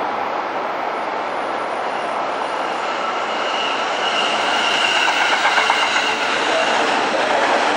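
A JR East E231-series 1000 electric multiple-unit train running past along a station platform, with a steady rumble of wheels on rail. It grows a little louder as the cars go by, with a high steady ringing tone joining in about three and a half seconds in.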